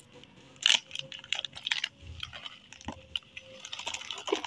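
Foil snack packet crinkling as it is shaken out, with light corn puff balls tumbling into a cardboard box in irregular little rustles and crackles, one louder rustle about a second in.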